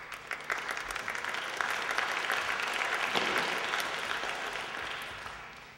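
Audience applauding, swelling over the first second or two and dying away near the end.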